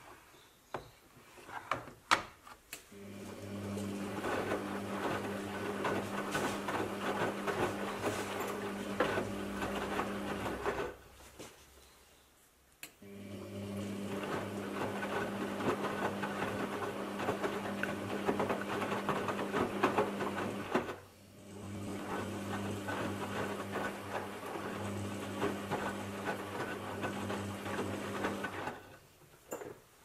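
Aldi front-load washing machine turning its drum during the wash stage of a cotton intensive cycle: a steady motor hum with the laundry tumbling. The drum runs for about eight seconds, stops for two, runs again for about eight seconds, halts briefly, then runs until near the end.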